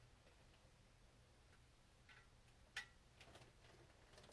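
Near silence broken by a few faint, sharp clicks of hand tools and metal engine parts being handled, the clearest about three seconds in.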